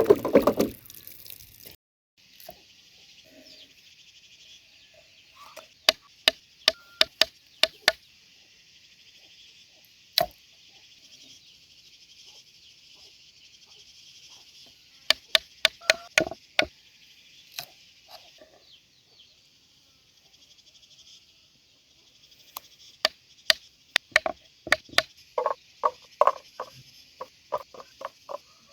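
Runs of sharp knocks, several quick strokes at a time, repeated a few times over a steady high insect chorus. A louder burst of noise at the start cuts off about two seconds in.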